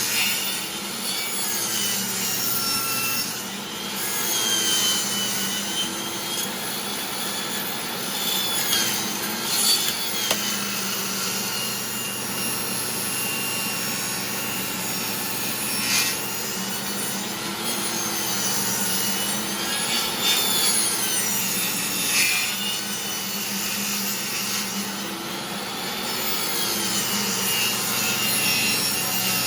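Old DeWalt table saw running and cutting into a wood blank as it is turned against the blade on a circle-cutting jig. Under a steady motor hum, the blade's whine rises and falls in pitch with the load, and there are a few brief sharp knocks.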